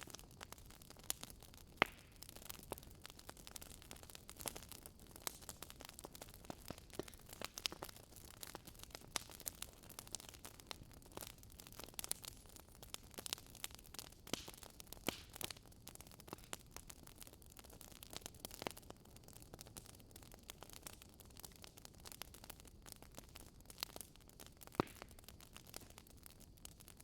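Faint crackling hiss with scattered, irregular sharp clicks.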